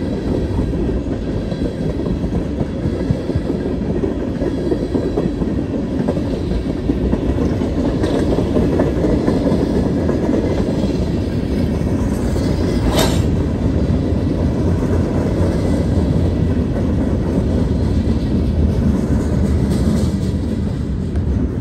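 Freight cars of a long CSX train rolling past, a steady low rumble with wheel clatter on the rails. One brief sharp sound stands out a little past the middle.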